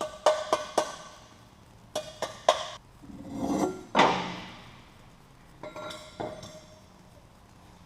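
Hammer blows on steel exhaust pipe, coming in quick runs, each blow ringing briefly. There is a short scrape that swells and fades about three seconds in.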